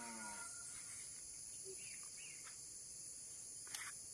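Steady high-pitched insect chorus over a rural field, with a few faint bird chirps about two seconds in and a single sharp click near the end.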